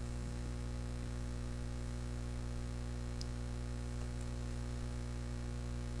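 Steady electrical mains hum, a constant low drone with a faint buzz of its overtones above it.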